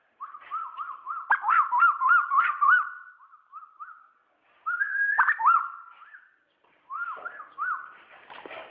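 Asian koel calling: quick runs of short, rising-and-falling whistled notes, in three bouts with brief pauses between them.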